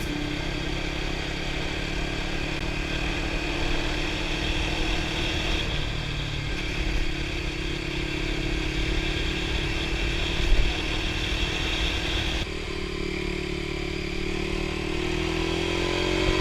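Kawasaki KLX250 Final Edition's single-cylinder four-stroke engine running steadily under way, with road noise; its pitch climbs gradually near the end.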